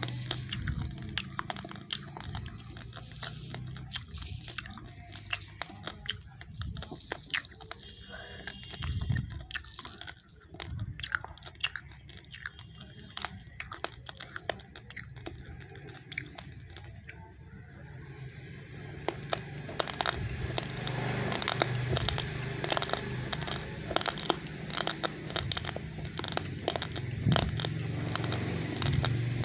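Close-miked crunching of raw, uncooked rice grains being bitten and chewed, a dense run of sharp cracks that gets louder and busier about twenty seconds in.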